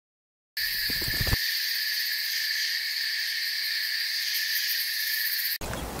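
A steady, high-pitched insect drone that starts abruptly about half a second in and holds unchanged. It cuts off suddenly near the end, and a short burst of a different, noisier sound follows.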